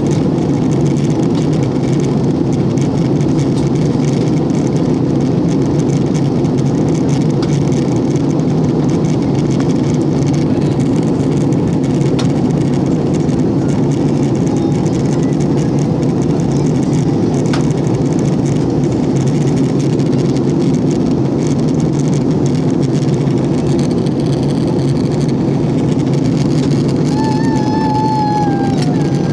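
Steady drone of a jet airliner's engines and airflow, heard inside the passenger cabin during descent. Near the end a short pitched sound briefly glides downward.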